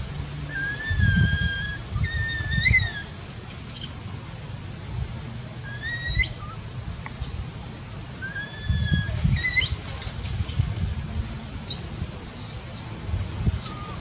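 Infant long-tailed macaque calling over and over: short high coos, several sweeping sharply upward into squeals, the crying of a baby separated from its mother. Bursts of low rumbling sit underneath, loudest about a second in and again about nine seconds in.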